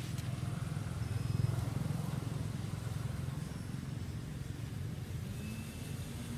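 Steady low rumble, loudest about a second and a half in, with a faint low hum joining near the end.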